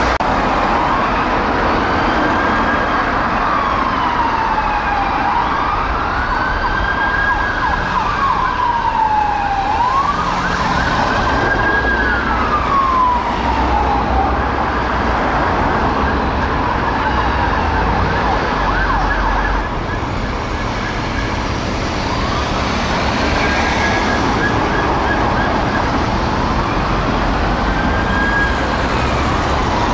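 Police car sirens on Peugeot 308 response cars sounding a slow wail, rising and falling every few seconds, over road traffic noise.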